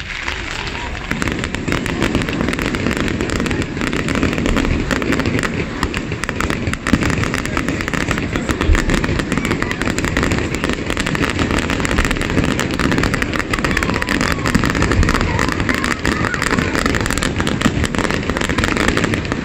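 Fireworks display in full swing: a dense, unbroken barrage of shell bursts and crackle, stepping up in level about a second in.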